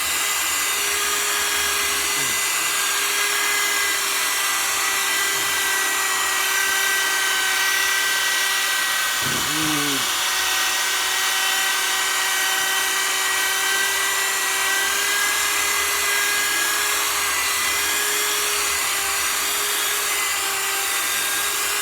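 Power drill with a sanding pad running at steady speed, wet sanding a plastic headlight lens: one continuous even motor whine with no change in pitch or load.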